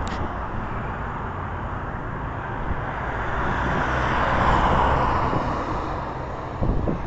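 Airbus A380's Rolls-Royce Trent 900 jet engines heard on approach: a steady rushing jet rumble that swells to its loudest about four seconds in, then eases off, with wind buffeting the microphone and a brief knock near the end.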